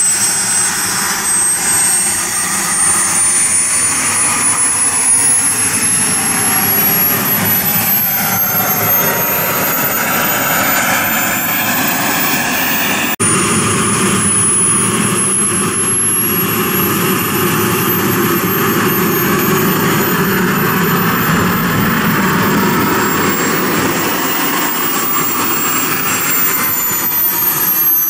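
Jet Italia Atom 250 model jet turbine running with a loud whine over a steady rushing noise, the whine climbing slowly in pitch as the turbine spools up. There is a sudden break about halfway through, after which the whine climbs again, holds high and begins to fall near the end.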